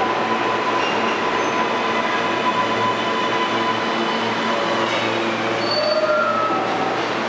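Kawasaki R143 subway train pulling into an underground station, its steel wheels running loudly on the rails as it slows. Short high squeals come from the wheels about five to six seconds in.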